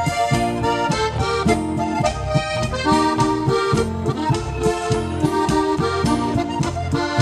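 Live Alpine folk music on two button accordions with an acoustic guitar, bass notes alternating with chords in a steady beat under a held melody.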